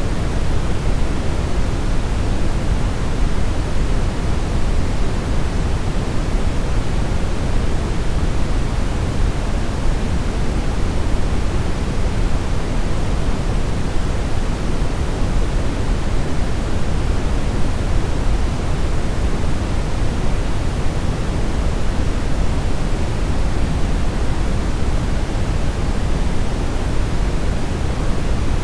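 Brown noise: a steady, even rumbling hiss with its energy heaviest in the bass and falling away toward the treble, unchanging throughout.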